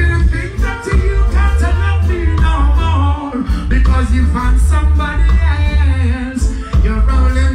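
Live reggae band playing, with a man singing into a microphone over a heavy bass line.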